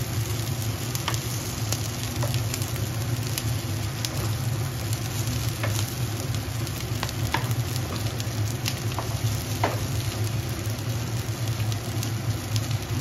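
Shami kababs shallow-frying in oil on a flat tawa: a steady sizzle with scattered sharp pops, over a low steady hum.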